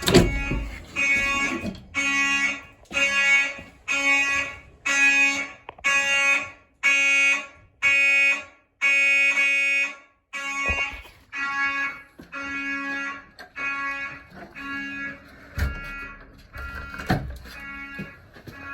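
Fire alarm horns sounding in a steady on-off pulse, about one blast a second. The blasts are loud for the first ten seconds and then fainter. There is a sharp thump at the start and a few softer thumps later.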